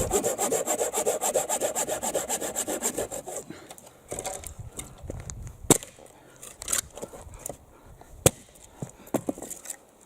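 Hand saw cutting firewood with fast, even back-and-forth strokes, stopping about three and a half seconds in. After that come a few sharp knocks and clacks of cut wood.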